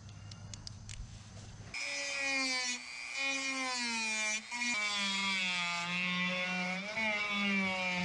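A Dremel rotary tool with a sanding attachment starts about two seconds in and whines as it sands the cut edge of a cured fiberglass-and-epoxy lay-up to take off sharp edges. Its pitch sags and wavers as the bit bears on the work.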